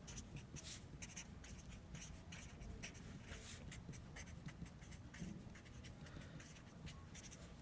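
Felt-tip marker writing on paper: a faint, quick series of short scratching strokes as a word is written out.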